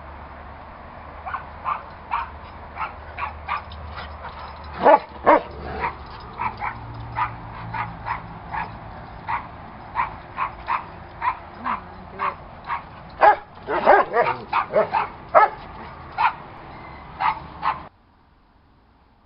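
Dogs barking and yipping in rough play: a run of short, sharp barks, about one or two a second, louder about five seconds in and again in a cluster past the middle. It cuts off suddenly near the end.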